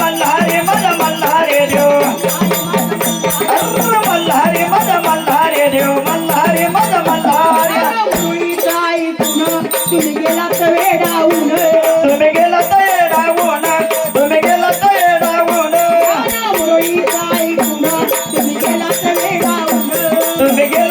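Marathi devotional folk music: a wavering melody over a steady, evenly repeating jingling rattle rhythm.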